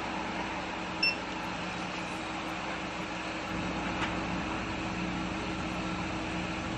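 Steady hum inside the cabin of a stationary car, its engine and ventilation running. A short high beep sounds once about a second in.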